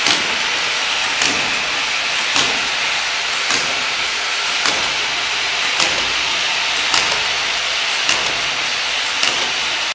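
Child-resistant cap assembly and lining machine running: a steady hiss with a short, regular clack a little less than once a second, nine in all.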